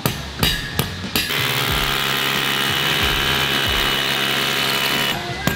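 Cordless hammer drill boring into a concrete floor through a fence post's base plate: a few knocks in the first second, then about four seconds of steady drilling that cuts off near the end.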